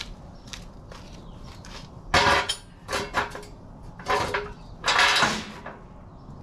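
Steel jack stands clanking as they are set down on concrete and fitted up under the buggy's frame: a handful of sharp, ringing metal clanks.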